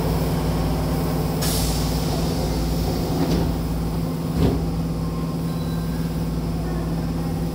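Subway car's double sliding doors closing: a short hiss about a second and a half in, then a soft knock and a firmer thud a little after four seconds in as the door leaves meet. A steady hum from the standing train runs underneath.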